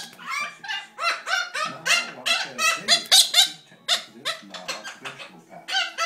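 Pet galah cockatoo giving a rapid run of short, pitched squawking calls, about two to three a second, each rising then falling.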